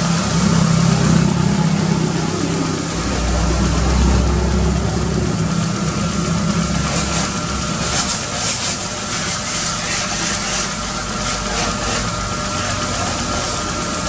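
Toyota Innova engine idling steadily with the hood open, with a few short hissing bursts about halfway through.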